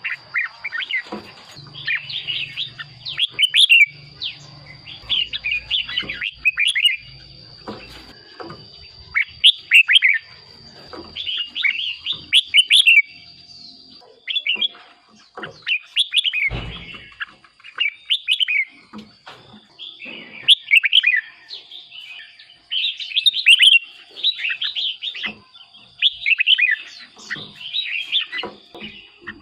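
Red-whiskered bulbul singing: short, fluty warbled phrases repeated every second or two with brief pauses between them. A faint steady high tone runs underneath, and a single low knock comes a little past the middle.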